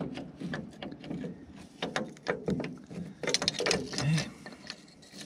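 Small steel linkage parts (a cam, lever and bracket) clicking and clinking against each other and the shuttle clutch control valve housing as they are fitted by hand: a run of irregular metallic clicks and taps.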